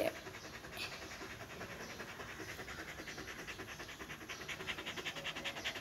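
A husky panting with its mouth open, quick even breaths of about five a second that grow stronger in the second half.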